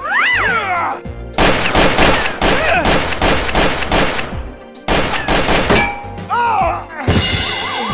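Automatic gunfire sound effect: a rapid string of shots lasting about three seconds, then a shorter burst. Near the end a warbling siren starts up.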